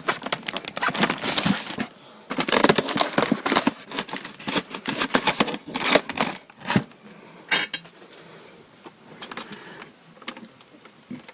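Packaging being handled as model-plane parts are worked out of a taped styrofoam box: a dense run of crinkling, crackling and small knocks, busiest for the first seven seconds and fainter after.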